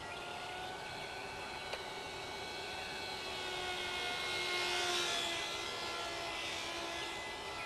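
Micro RC plane's brushless motor and propeller whining in flight, its pitch shifting with the throttle, loudest as it passes closest about five seconds in.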